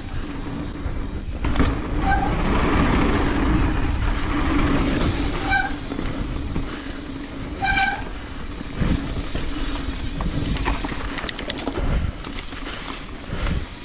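Mountain bike rolling down a dirt trail: steady tyre and rattle noise with a low hum, and three short high squeaks about two, five and a half and nearly eight seconds in.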